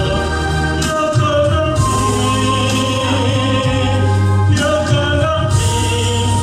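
Choir singing a gospel hymn, several voices holding chords that change every second or so over steady low notes.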